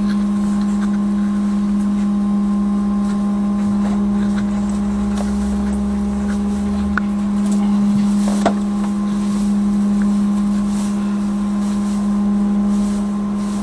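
Trolleybus's steady electrical hum: one strong low tone with several higher tones above it. A deeper rumble underneath stops about seven seconds in, and a single sharp click comes a little later.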